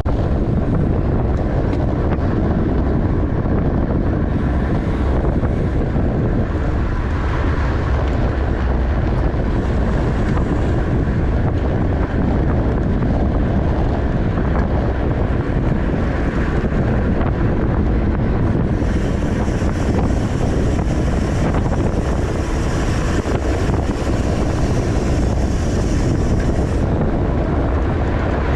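Wind rushing over a racing bicycle's camera microphone at speed, a loud steady rumble. About two-thirds of the way through, a higher hiss joins it for several seconds.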